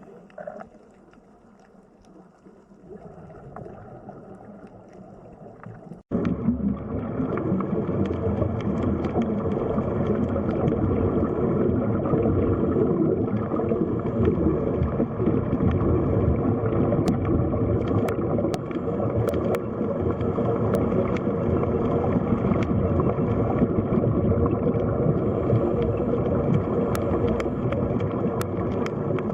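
Steady rushing, gurgling water noise, as heard underwater, that starts suddenly about six seconds in after a quieter stretch, with a few faint high ticks later on.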